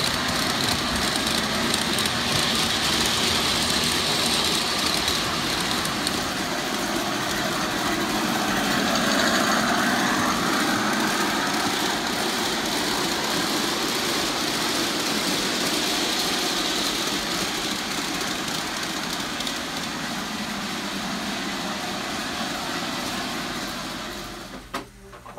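Large-scale model trains running fast on sectional track: a steady rolling rumble of wheels on the rails mixed with motor whine. It dies away abruptly near the end.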